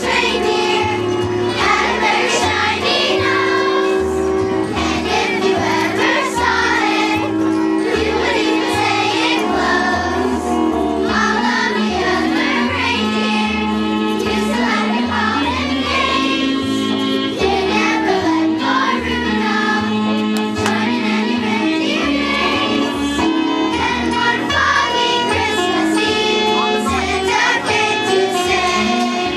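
A children's choir singing a song over an instrumental accompaniment with a steady bass line.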